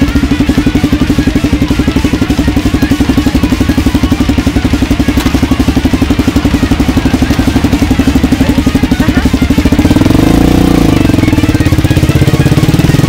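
Honda XR250R's single-cylinder four-stroke engine idling with a rapid, even pulse, then revving up and back down about ten seconds in as the bike pulls away.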